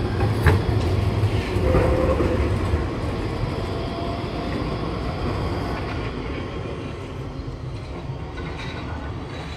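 Leoliner tram rolling slowly past and turning away into the depot, its wheels rumbling over the rails, with a sharp click about half a second in and a brief wheel squeal in the curve. The sound fades steadily as it moves off.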